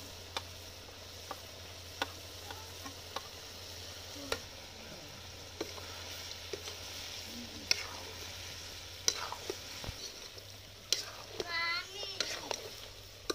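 Pork frying in a metal kadai, a steady sizzle, while a steel ladle stirs it with irregular clinks and scrapes against the pan, more often in the second half. A brief squeal sounds near the end.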